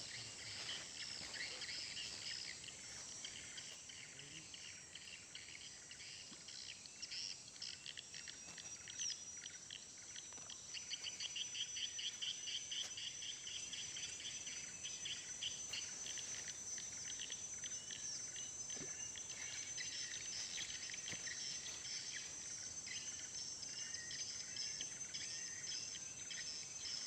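Forest birds chirping and calling over a steady high-pitched insect drone, with a run of fast repeated notes about eleven to thirteen seconds in.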